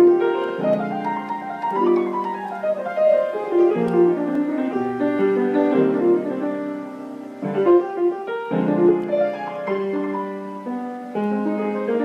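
Piano played with both hands: sustained chords under a melody, with a run of notes stepping downward a couple of seconds in and fresh chords struck several times.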